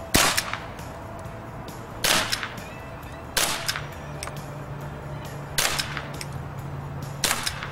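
Crosman 357 CO2 air revolver firing .177 pellets: five sharp shots spaced one to two seconds apart, each with a brief tail.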